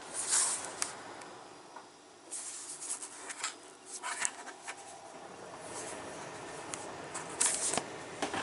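Handling noises: scattered clicks and brief rustling bursts, loudest near the start and again about seven and a half seconds in.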